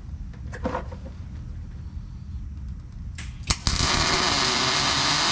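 Welding arc striking for the first tack weld on 18-gauge sheet steel: a few sharp crackles as the arc catches, then a steady loud crackling hiss for about a second and a half that stops abruptly. The tack only partly catches the joint.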